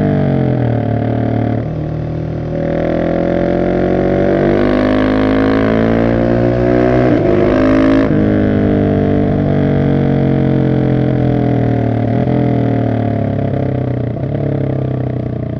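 Husqvarna 701 SM supermoto's single-cylinder engine running through a decatted Arrow exhaust, the revs rising and falling with the throttle: falling at first, dipping about two seconds in, climbing again, with a sharp break about eight seconds in, then settling lower.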